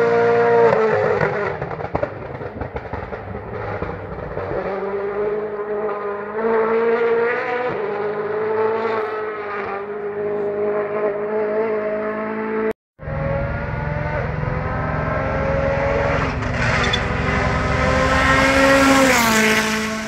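Rally car engines at full throttle on a stage, the note climbing and then dropping at each gear change or lift. About two-thirds of the way in the sound cuts out for a split second, and a second car is heard pulling hard with a long rising note that falls near the end.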